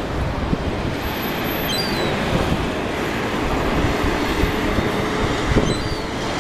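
Steady rush of wind on the microphone over breaking ocean surf. There are two short, faint high chirps, about two seconds in and again near the end.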